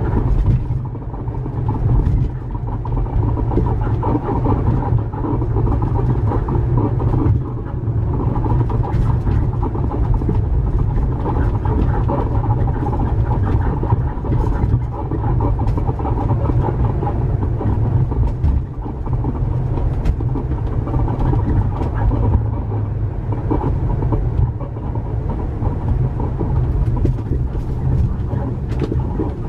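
Registro Owl camper van on the move, with a loud squeaking and creaking from under the floor, like an animal crying, over the road rumble. The noise comes from a faulty helper leaf spring on the rear suspension.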